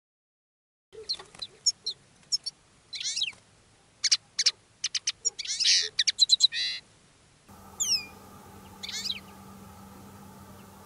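European goldfinch and common linnet song: a quick run of high twittering chirps, ticks and trills, then after a pause two falling whistled notes and a short twitter.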